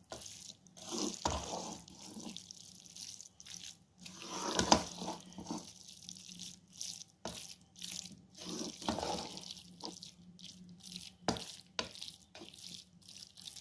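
Carrot halwa (gajar ka halwa) being stirred and mixed with a spoon in a cooking pot: irregular scraping and stirring strokes with short pauses between them.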